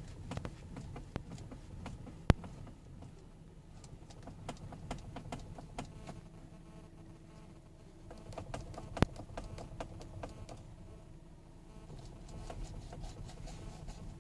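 Irregular clicking and knocking from the steering of a 2017 Hyundai Creta with electric power steering, over a low rumble, with two sharp, louder knocks about two seconds and nine seconds in. The knocks are the steering fault the owner is recording.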